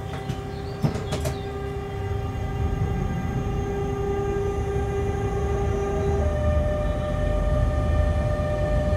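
Electric locomotive accelerating: steady traction whine tones over a low rumble of wheels on track, growing louder, with one tone stepping up in pitch about six seconds in. A few sharp clicks in the first second or so.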